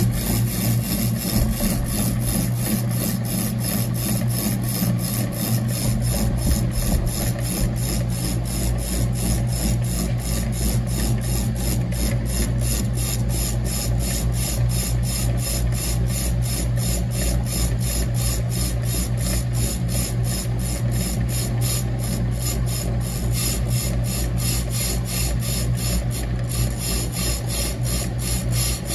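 Hunter 205 brake lathe turning a brake drum under power feed, the cutting bit shaving the drum's braking surface: a steady motor hum under a continuous scraping rasp, with a deeper rumble joining about six seconds in.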